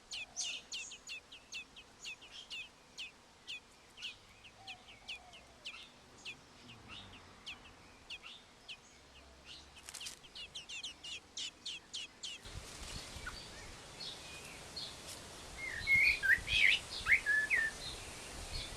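Birds chirping at a nest: a quick run of short high chirps, about two to three a second. About two-thirds of the way in, a hiss rises sharply in the background, and near the end come louder, lower, curving calls.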